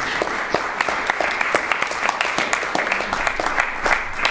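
A small group applauding, clapping steadily, with individual claps standing out.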